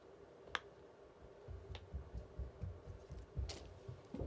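Silicone pop-it fidget toy being pressed, its bubbles giving a few faint, sharp popping clicks, with soft low thumps of the toy being handled.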